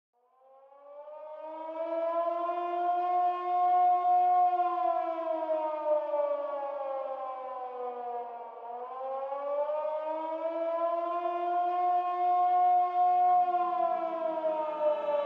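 Air-raid siren wailing. It fades in as its pitch climbs, holds at the top, then slides slowly down. About eight and a half seconds in it climbs and falls a second time.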